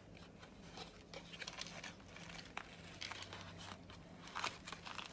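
Faint crinkling, rustling and small irregular clicks of hands handling and assembling a filled tortilla on a plate, over a low steady hum.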